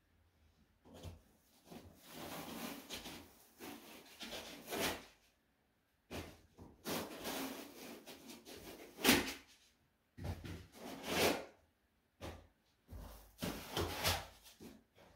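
Packaging being handled by hand while figure parts are taken out of the box: irregular rustling and scraping in several stretches, with one sharp knock about nine seconds in.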